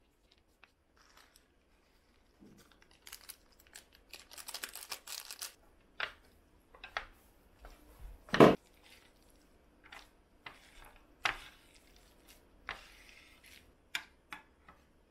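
Chopsticks mixing black bean sauce into a plate of instant noodles: sticky rustling of the noodles with sharp clicks and taps of the chopsticks against the plate, the loudest about eight seconds in. Near the end, a couple of light knocks as peeled boiled eggs are set down on the plate.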